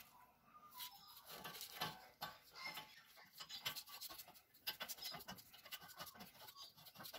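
Faint scattered metallic clicks and scratches as a brake caliper carrier bolt is threaded in by hand.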